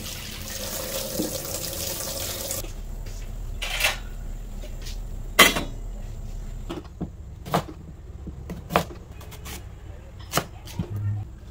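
Tap water running into a stainless steel sink over cut white radish being rinsed by hand, stopping after about two and a half seconds. Then scattered sharp knocks, one loud one about five seconds in, and knife strokes cutting through radish on a cutting board near the end.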